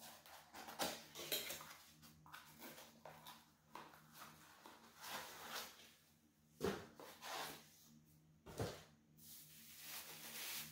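Cardboard candle box being opened and the candle taken out: a run of rustling and scraping of cardboard and packing, with two sharp knocks about two-thirds of the way through.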